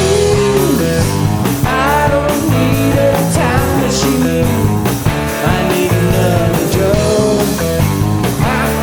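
Rock band playing live, with electric guitar prominent over a steady low end.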